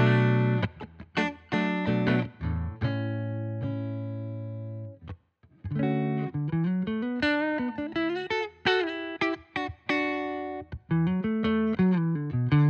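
Donner Hush-X headless electric guitar played with a clean tone in its active pickup mode. A few quick chords lead to a chord left ringing for about two seconds as it dies away, then after a short pause a melodic line with string bends.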